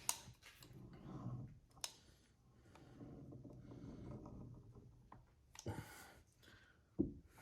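Faint scattered clicks and light rubbing as a tube of silicone sealant is worked to lay a bead.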